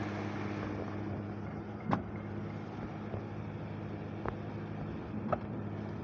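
A ready-mix concrete truck's diesel engine running with a steady hum while concrete is poured down the metal chute. There are three sharp knocks, about two seconds in, past four seconds and past five seconds.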